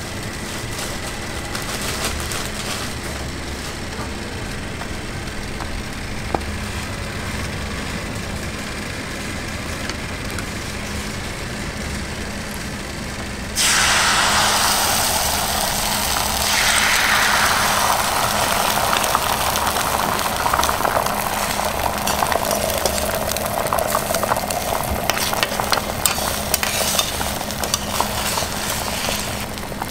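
Oil sizzling on a hot flat-top griddle over a steady low hum. About halfway through, the sizzle turns suddenly louder and brighter as beaten egg is poured into a metal egg mould on the griddle, and it keeps frying.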